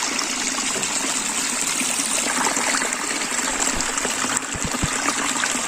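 Steady rushing of water, an even unbroken hiss from rain and floodwater, with a few faint low knocks about four seconds in.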